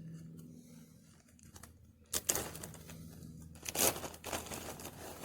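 Rustling and crinkling handling noises as a dog-proof raccoon trap is set on the ground, with two louder scraping rustles, one about two seconds in and one near four seconds, over a steady low hum.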